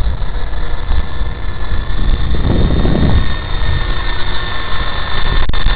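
Wltoys V913 RC helicopter hovering in flight: a steady electric motor whine with rotor hum. Wind buffets the microphone, with a stronger gust about halfway through.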